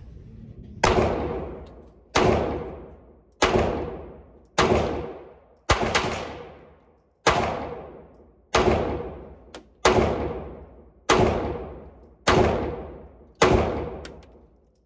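FMK 9C1 Gen 2 9mm pistol firing eleven shots at a steady pace, a little over one a second, with a slightly longer pause after the fifth. Each shot echoes in an indoor range.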